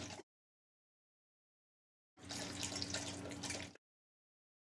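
Drinkwell pet fountain running: water falling into the bowl with a steady low hum, heard for about a second and a half in the middle before the sound cuts out abruptly.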